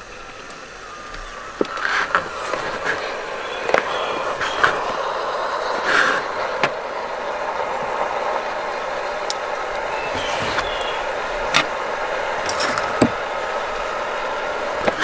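Handling sounds at a table: a steady hiss, with sharp clicks and knocks scattered through as small items such as a plastic pouch and a folding knife are picked up and set down.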